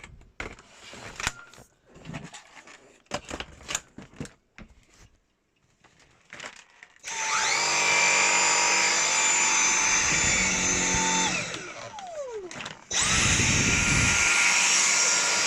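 Dyson V7 cordless vacuum cleaner's motor starting with a rising whine, running steadily for about four seconds, then winding down with a falling whine. About two seconds later it starts again and keeps running. Before the first start there are several seconds of scattered clicks and knocks from handling.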